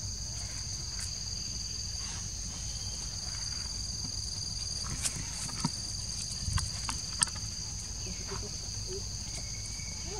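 Steady high-pitched drone of insects chirring in the forest, two even tones that hold throughout. A few sharp clicks and rustles come between about five and seven seconds in.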